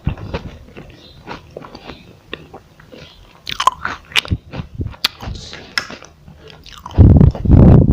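Close-up mouth sounds of someone biting and chewing a crispy chocolate roll: a run of small crunches and crackles, then a louder, heavier stretch of chewing noise near the end.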